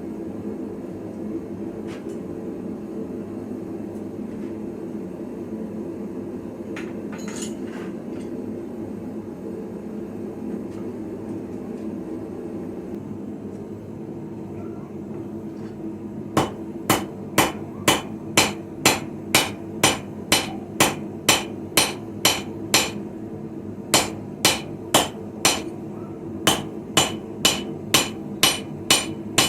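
Hammer blows on iron on an anvil: a fast run of sharp, ringing strikes at about two a second starts about halfway through, pauses briefly, then carries on. A steady low hum runs underneath throughout.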